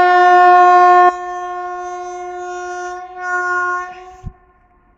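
A train horn sounding one long blast: very loud for the first second, then held more quietly with a brief swell, and cutting off about four seconds in.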